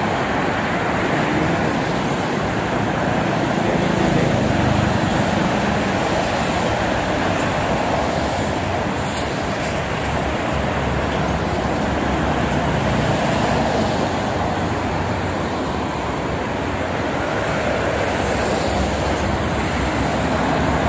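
Steady highway traffic noise from cars and heavy cargo trucks streaming past on a multi-lane toll road: engine and tyre noise blending into a continuous wash with gentle swells and no single event standing out.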